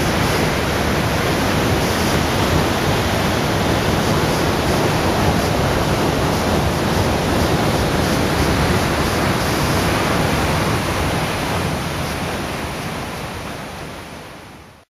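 Waterfall pouring steadily into a rocky gorge, a constant loud rush of falling water that fades out over the last few seconds.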